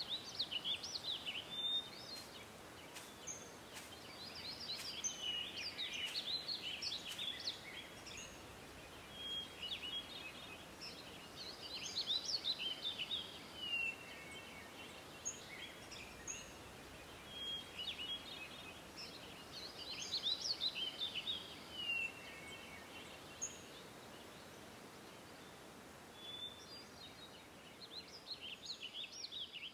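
Songbirds singing: a song phrase of two to four seconds, made of quick high notes, comes back every few seconds, with single short calls in the gaps, over a faint steady hiss.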